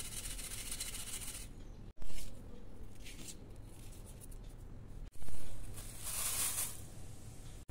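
Dry thin poha (flattened rice) flakes rustling and pattering as they are shaken through a steel sieve onto a steel plate and poured into a steel pan. The sound comes in short bursts, the loudest about two and five seconds in, with a bright hiss of pouring flakes near the end.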